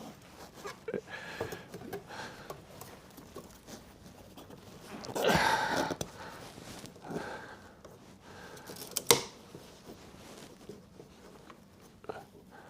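Handling noise as a metal spring unit is worked into a chair's wooden seat frame: scattered light rattles and scrapes, a louder scraping rustle about five seconds in, and a sharp click a little after nine seconds.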